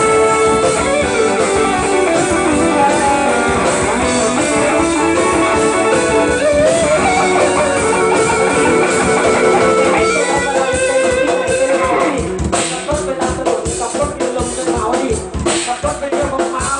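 Live band with an electric guitar playing a lead line of held, bending notes. From about twelve seconds in, a fast steady beat of drums comes in under it.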